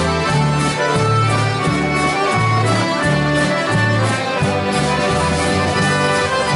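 A large group of accordions playing a dance tune in unison, backed by strummed guitars and a bass line that steps to a new note about twice a second with a steady beat.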